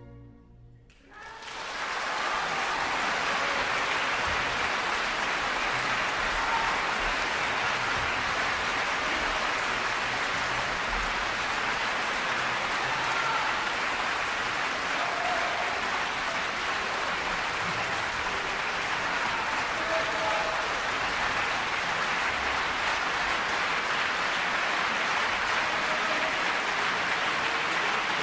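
Concert audience applauding after the final chord of an orchestral song dies away, the clapping swelling in about a second in and then holding steady.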